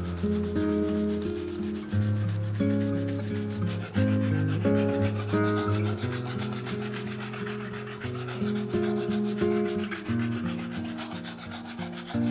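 Instrumental background music of changing held notes over a low bass line. Under it, a bristle brush rubs rapidly back and forth across glossy alligator leather, buffing the finished wallet.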